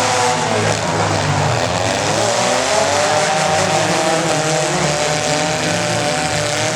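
Compact pickup truck engine running hard at high revs. Its pitch dips near the start, climbs back over a couple of seconds, then holds high and steady.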